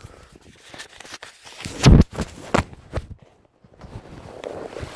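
Handling noise on the camera's microphone as it is lowered: a few knocks and rubs, the loudest a deep thump about two seconds in, a moment of near silence, then faint rustling.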